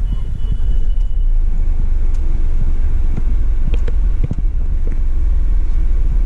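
Low, steady rumble inside the cabin of a Hyundai Xcent taxi as it runs and drives, with a few light clicks.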